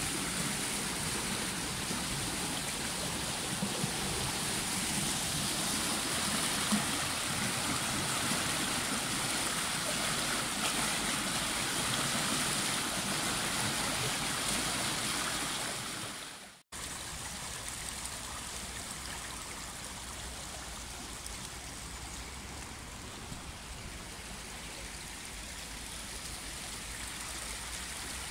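Forest stream in flood, swollen water rushing fast over rocks and around fallen birch trunks in a steady rush. The sound breaks off for a moment about two-thirds of the way through and carries on a little quieter.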